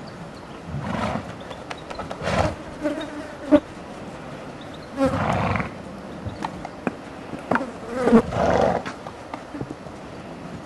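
Flies buzzing close by in short passes that come and go, with several louder half-second bursts and a few sharp clicks between them.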